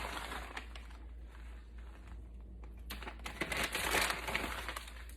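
Plastic bag of shredded cheese crinkling and rustling as cheese is sprinkled from it, in two louder stretches: at the start and again about three seconds in.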